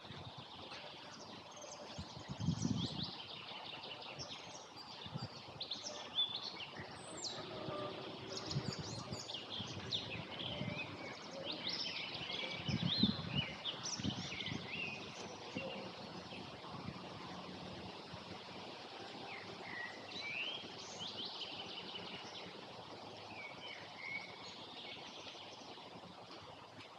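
Several wild birds singing and chirping in short overlapping phrases over a steady outdoor background hiss, busiest in the first half. Two brief low rumbles, one near the start and one about halfway through.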